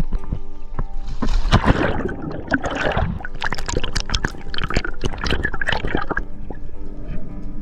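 Water splashing and bubbling as a spearfisher ducks under the surface and dives, a dense run of crackling splashes between about one and six seconds in. Background music with steady held notes plays underneath.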